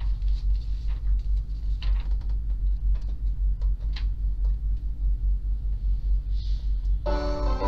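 A steady low rumble, with a few faint rustles. About seven seconds in, piano music starts the hymn's introduction.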